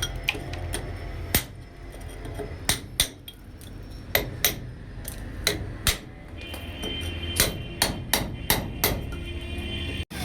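Hammer striking repeatedly at an uneven pace: some twenty sharp knocks, several louder and ringing.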